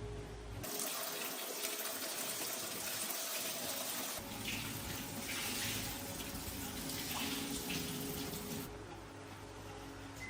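Water running in a steady rush, starting about half a second in, changing in sound around four seconds in, and stopping suddenly near the end.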